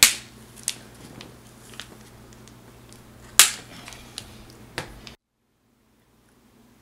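Hands pulling protective foam packaging off a motherboard: a handful of sharp clicks and snaps over a low hum, the loudest about halfway through. The sound cuts out abruptly about five seconds in.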